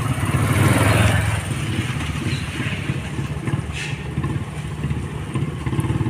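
Small scooter engines running as scooters ride past at low speed, with a steady fast-pulsing engine note that is loudest about a second in.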